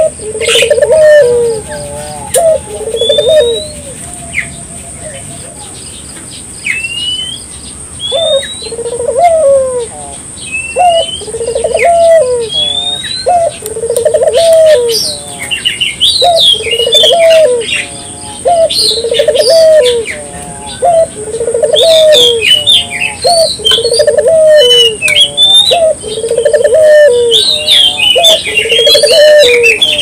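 A puter dove cooing over and over: a low, throaty coo about every second and a half, with a pause of a few seconds near the start. This is the steady 'gacor' calling used to lure other puter doves into calling. Small birds chirp high above it, more busily in the second half.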